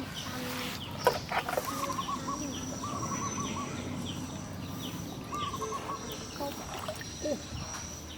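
Birds calling: a short falling chirp repeated about twice a second and a few warbling calls, over a steady high insect-like whine. A sharp knock sounds about a second in.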